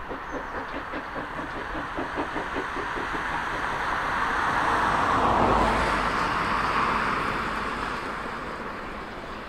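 Exhaust beats of a GWR pannier tank steam locomotive working a train, about four a second, heard from a distance. A swell of rushing noise rises over them, peaks a little past halfway, then fades.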